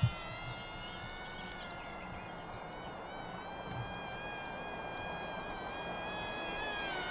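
Whine of the XK A120 Airbus A380 model RC plane's small electric motor and propeller in flight, a thin buzzing drone whose pitch drifts slowly down and back up as the plane flies around.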